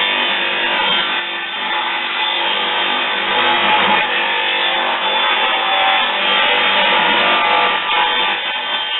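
Guitar music, played steadily.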